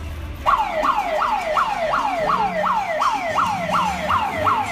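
Electronic siren wailing in a fast repeating pattern: each cycle jumps up sharply and slides back down, about two to three times a second. It starts abruptly about half a second in.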